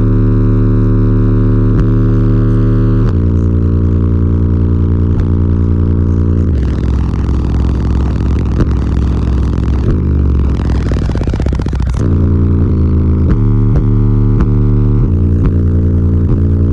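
Deep bass notes played through a car audio system of twelve 15-inch subwoofers in a sixth-order bandpass enclosure. Each note is held for a second or a few before the pitch steps to another, with one falling sweep about two thirds of the way through and short rattles scattered throughout.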